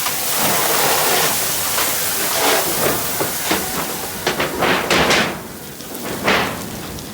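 Fire hose spraying water with a steady hiss, broken by several short sharp gushes in the second half; the steady hiss dies down about five seconds in.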